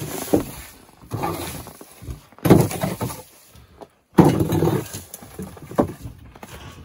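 Irregular scraping and crunching strokes of a rake dragged over wood chips and packed snow. The sound comes in three stretches, cutting off abruptly twice.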